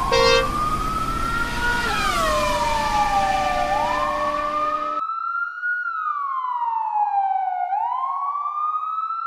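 Emergency-vehicle siren in a slow wail, its pitch rising and falling in long sweeps, with a short horn blast at the start over engine and road noise. About five seconds in, the background noise cuts out and a clean siren wail carries on alone.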